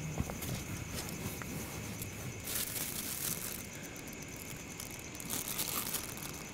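A plastic carrier bag holding a paper takeaway bag rustling and crinkling as it is handled. It comes in two bursts, about two and a half seconds in and again near the end.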